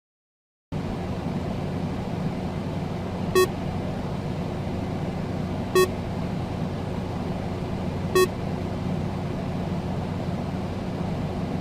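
Steady electrical hum and hiss that starts abruptly under a second in. Over it, a short buzzy electronic beep sounds three times, evenly spaced about two and a half seconds apart.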